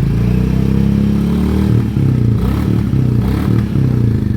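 Royal Enfield Classic 350's single-cylinder engine running at raised revs, then revved up and down several times in the second half.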